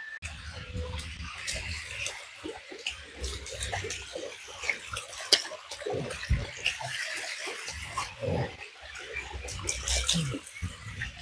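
Water splashing and running over rock, mixed with irregular scuffs, knocks and effortful sounds of someone scrambling up the wet, slippery rock of a waterfall.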